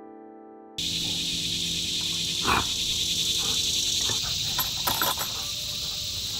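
A steady chorus of insects, crickets or katydids, buzzing high, with a few short clicks and a thump around the wooden gate and its latch. Soft piano music fades out in the first second.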